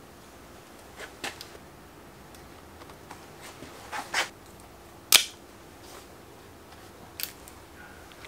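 Small sharp clicks and taps as a shift cable housing is worked into a Shimano Sora rear derailleur's barrel adjuster, about six in all, the loudest a crisp click about five seconds in.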